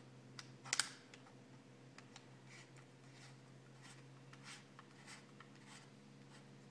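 Small metal gun parts clicking and tapping as they are handled by hand. There is a sharp cluster of clicks about a second in, then scattered light clicks.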